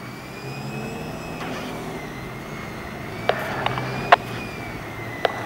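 Off-road 4x4 engines running at low revs, a steady low hum with a faint high whine that wavers up and down. A few sharp clicks or cracks come in the second half.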